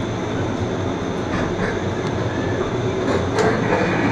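A train running, heard from aboard: a steady noise of wheels and carriage in motion.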